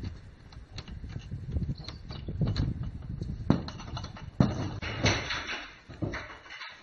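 Irregular knocks and clatter on wood, from boots and a wooden door as a hiker goes into a wooden hut, over a low rumble. The sharpest knocks come about three and a half and four and a half seconds in.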